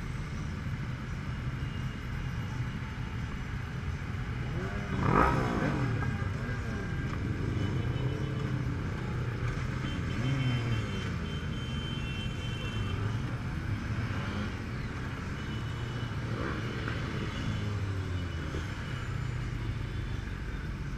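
Motorcycle engines of a slow-moving pack of riders, their notes rising and falling as bikes pull away and throttle back. One bike revs loudly about five seconds in.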